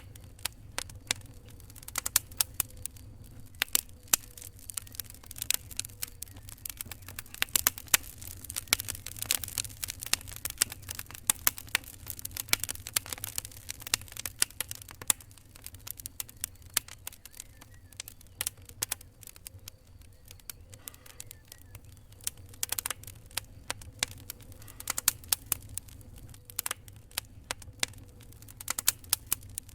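Wood fire crackling, with irregular sharp pops and snaps, busiest in the first half, over a low steady rumble.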